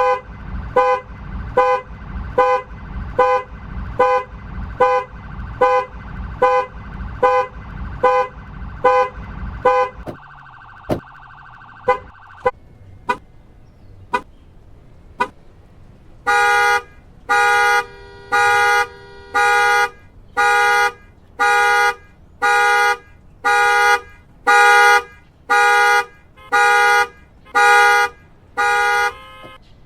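Car alarms sounding: one alarm beeps in an even, repeating pattern, stops about ten seconds in with a brief steady tone and a few clicks, and then a second alarm sounds a run of evenly spaced loud blasts.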